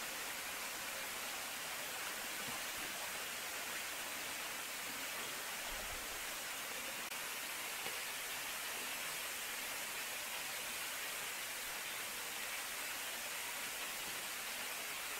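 Steady, even rushing hiss of running water, without a break.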